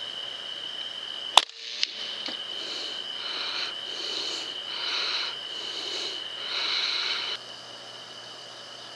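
Air rifle shot about a second and a half in, followed by a second, smaller snap half a second later, over a steady high whine. Then a run of about six short breathy puffs, roughly one every second, that stop abruptly about seven seconds in.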